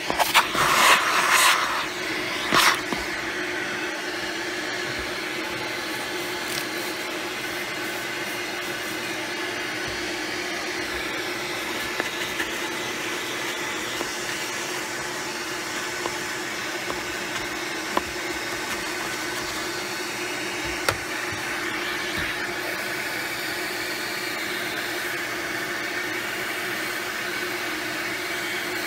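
Rug Doctor carpet shampooer's vacuum motor running steadily with a constant hum. In the first two seconds or so there are loud rushing bursts as its upholstery tool sucks water up from a cup holder. A few faint clicks come later.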